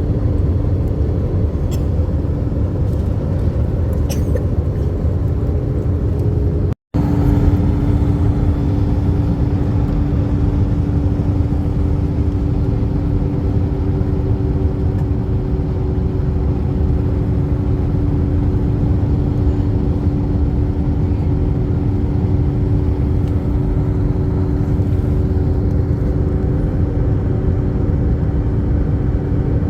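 Airliner cabin noise in flight: a steady rumble from the jet engines with a droning hum. It breaks off for an instant about seven seconds in.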